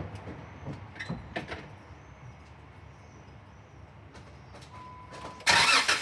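A few light clicks and knocks, then a brief steady electronic beep just before five seconds in. Half a second before the end, the Jeep JK Wrangler's engine starts with a sudden loud rush.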